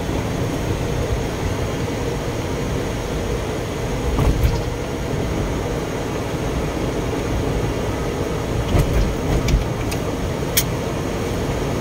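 Steady road and engine noise heard from inside a moving car's cabin in heavy rain, with a few brief sharp ticks.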